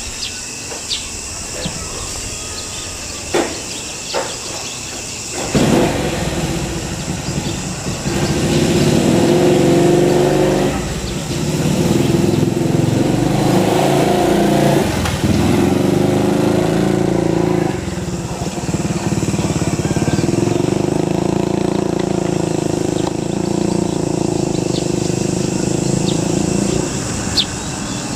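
An engine starts up loud about five seconds in and keeps running, its pitch and level shifting a few times. Under it is a steady high hum, with a few light clicks before the engine comes in.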